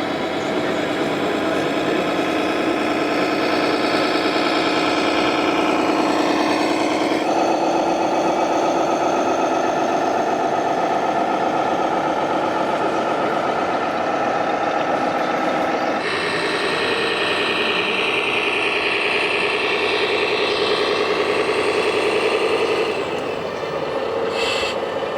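Radio-controlled model truck running, with a steady engine drone. Its pitch steps up abruptly about seven seconds in, shifts again about sixteen seconds in and drops back shortly before the end.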